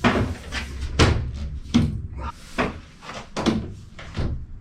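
A series of about six knocks and clunks, a little under a second apart, as lengths of 22mm plastic push-fit air pipe are handled and knocked about while being swapped.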